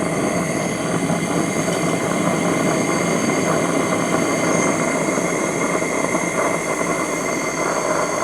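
BRS 'owl' butane-canister heater burning steadily just after ignition: a constant hiss and rush of the compressed gas passing through the air-mixing valve, together with the burner's combustion noise from a head with no visible flame.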